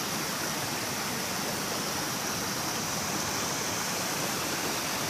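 River water rushing, a steady hiss with no breaks.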